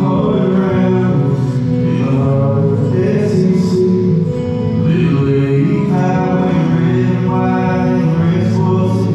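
A band playing live: a man singing into a microphone over electric and acoustic guitars.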